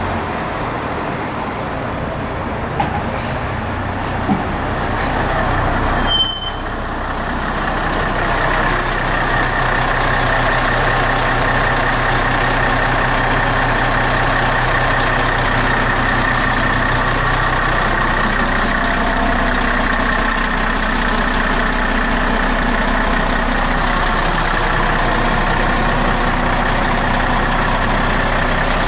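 Mercedes-Benz Integro intercity bus's diesel engine running steadily at close range, with a brief drop about six seconds in.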